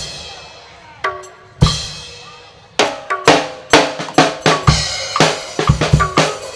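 Drums of a Burmese hsaing waing orchestra: two separate ringing pitched drum strokes, then from about three seconds in a steady rhythm of pitched strokes and deep thuds, three or four a second.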